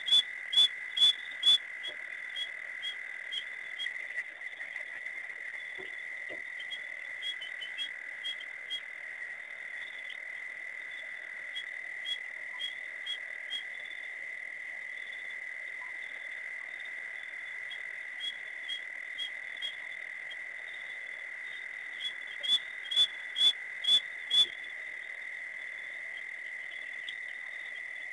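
Night chorus at a waterhole: a steady high drone with runs of sharp, high-pitched calls, two or three a second, loudest at the start and again about twenty-two seconds in, typical of frogs calling.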